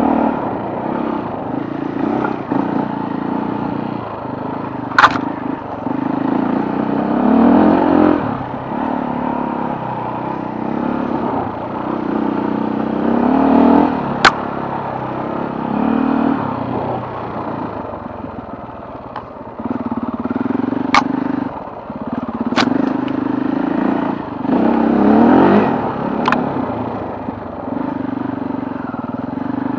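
Off-road motorcycle engine ridden hard over rough ground, revving up and easing off again and again. Five sharp clacks cut through it.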